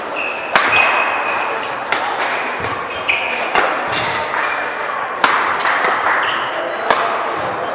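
Badminton rally: about six sharp racket strokes on the shuttlecock, one every one to two seconds, with short high squeaks of shoes on the court floor, over steady hall background noise.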